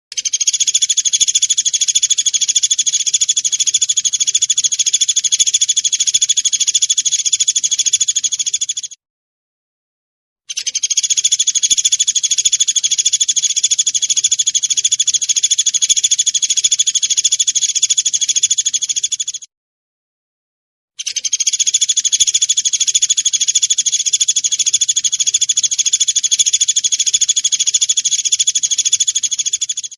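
Pelatuk beras woodpecker calling in a loud, dense, high-pitched stream of chattering notes. It comes in three unbroken stretches of about nine seconds, each cut off by a silent break of a second and a half. This is a looped tutor or lure recording of the call.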